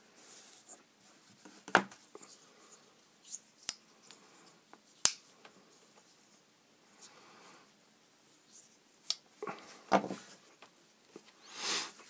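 Scattered light clicks and handling noises from a small folding knife and a bit driver being worked by hand, as the knife's pivot screw is driven in and the knife is fitted back together.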